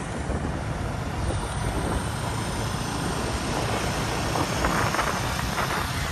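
Steady rush of wind and road noise from riding an electric scooter at about 30 km/h, with the sound of surrounding motor traffic; a short, slightly busier stretch comes about four to six seconds in as a motorcycle rides close alongside.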